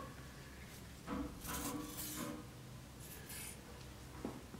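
Faint rustling and scraping as a plastic wood-glue bottle is squeezed and the axe head and handle are handled, in two short clusters over a steady low hum.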